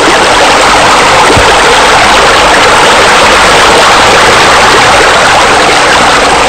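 Loud, steady rushing noise like flowing water, with soft background music underneath.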